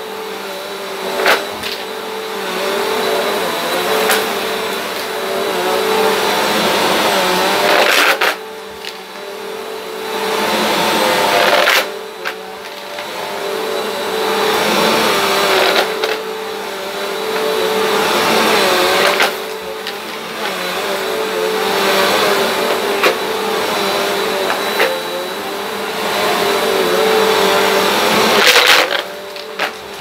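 Upright vacuum cleaner running with its brushroll over a rug, its noise swelling and easing every few seconds as it is pushed forward and pulled back. Sharp clicks and rattles come as pennies are sucked up.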